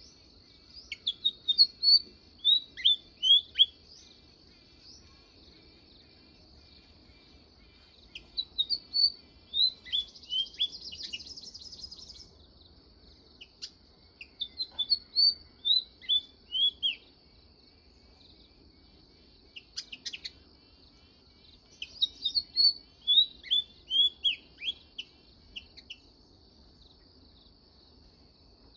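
Sparrow chirping in four quick bouts of short, downward-sliding high notes, with pauses of a few seconds between bouts and a brief rapid chatter in the second bout. A faint steady high tone runs underneath.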